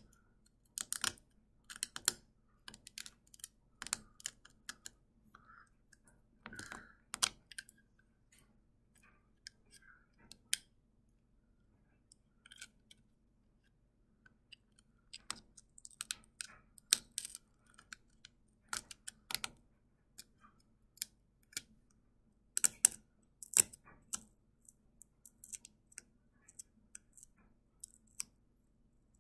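A needle picking and scraping at a brittle sugar honeycomb (dalgona) candy, making irregular sharp ticks and clicks, with a quiet spell of a few seconds near the middle.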